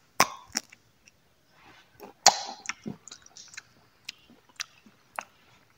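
Close-up mouth sounds of chewing crunchy dry fruit: a string of sharp crunches and clicks at uneven intervals, the loudest a little over two seconds in.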